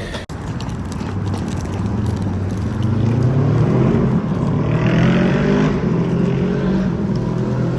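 A vehicle pulling away, its motor note rising steadily in pitch over a few seconds and then holding level, over a continuous rumble.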